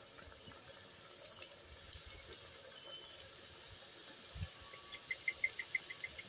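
Faint, steady sizzle of gulab jamun balls deep-frying in oil in an iron kadai on low heat, with a few light clicks and one low thud. Near the end comes a rapid series of short high chirps, about six a second.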